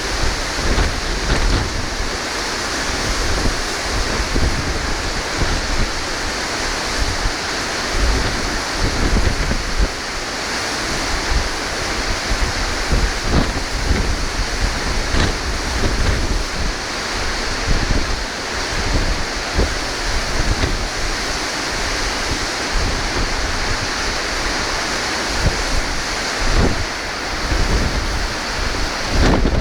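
Strong wind off the sea buffeting the microphone in constant gusts, over the steady wash of breaking surf.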